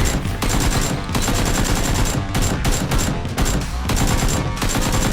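Rapid automatic gunfire: dense, continuous volleys of shots with a few brief breaks.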